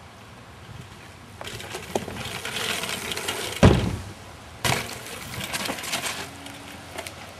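A rider's wheels rolling in and growing louder, then a heavy thump about three and a half seconds in as the wheels strike the wall, and a second sharp impact about a second later as the rider comes back down, with rolling fading out after.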